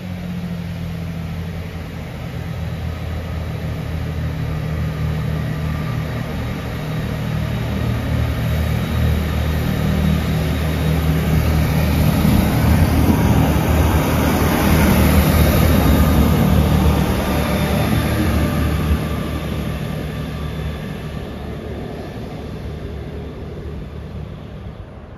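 Northern Class 158 diesel multiple unit departing under power: a steady diesel engine hum that grows louder as the train passes, loudest about two thirds of the way through, then fades as it draws away.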